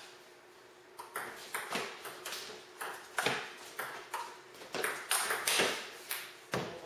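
Table tennis rally: a ping-pong ball clicking off the paddles and bouncing on the table in quick alternation, starting about a second in.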